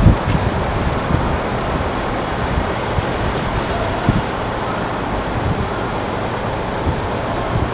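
Wind buffeting the microphone: a steady rushing noise with uneven low rumbles.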